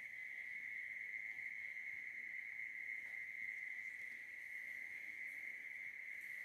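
Crickets trilling in one steady, high-pitched drone with no breaks.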